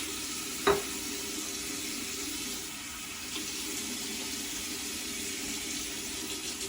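Tap running steadily into a bathroom sink, with one short knock against it about a second in.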